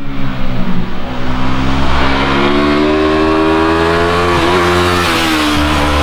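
2020 Yamaha R3's parallel-twin engine on its stock exhaust, revving up under acceleration with the pitch climbing steadily. About four and a half seconds in the pitch dips briefly, then holds high and eases slightly at the end.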